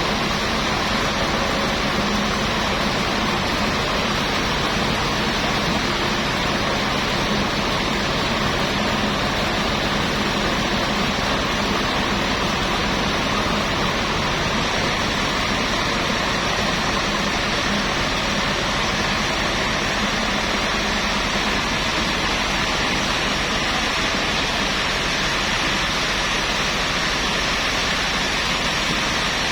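Sawmill machinery running with a steady, unchanging noise and a faint low hum underneath.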